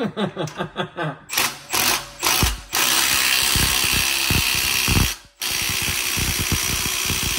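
Cordless impact driver tightening the bolt on an exhaust pipe clamp. It gives a few short trigger bursts, then runs steadily for a couple of seconds, stops briefly about five seconds in, and runs steadily again until the clamp is tight.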